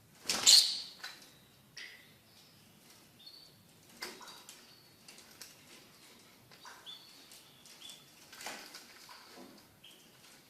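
Fischer's lovebirds calling, with a loud, harsh burst about half a second in, then short, high chirps and scattered clicks.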